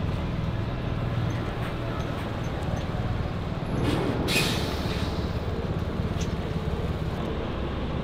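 Irizar i8 coach's diesel engine running with a steady low rumble. About four seconds in, a short burst of compressed-air hiss.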